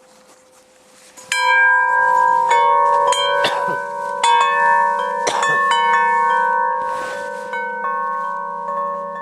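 Hanging metal chime bells knocked repeatedly as they are handled, starting about a second in: several clear tones struck one after another, each ringing on and overlapping the next, slowly fading toward the end.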